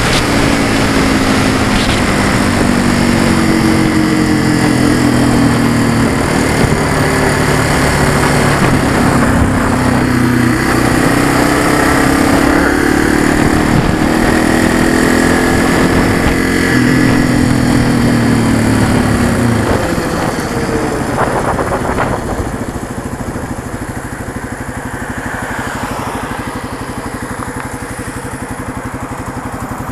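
Motorcycle engine running under way with wind noise, its pitch rising and falling as the rider changes speed. About two-thirds of the way in it drops to a quieter, steady idle as the bike comes to a stop.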